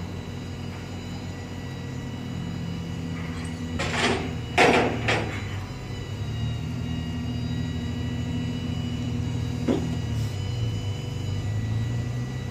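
Rollback tow truck's engine running steadily with its bed tilted down for loading. Three loud clanks come about four to five seconds in, and one more knock near ten seconds.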